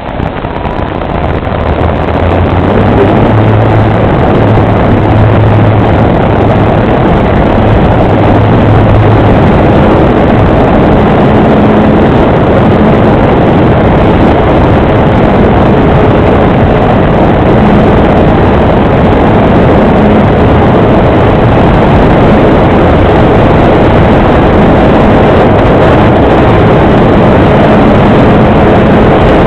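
Apprentice RC trainer plane in flight: a loud, steady rush of wind and propeller noise from its electric motor, swelling over the first few seconds and then holding level.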